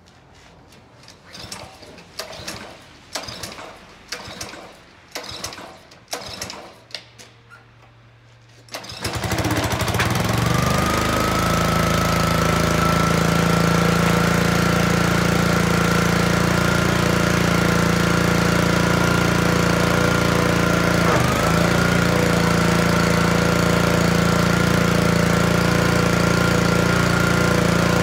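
Honda-engined Craftsman pressure washer starting about nine seconds in after several short handling sounds, then running steadily with a high steady whine on top. About two-thirds of the way through, the engine and the whine dip briefly and recover.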